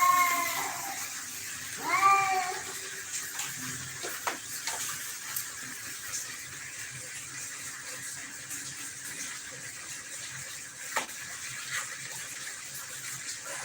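A domestic cat meowing twice, once at the start and again about two seconds later, each meow rising then falling in pitch. After that only a faint steady hiss with a few small clicks.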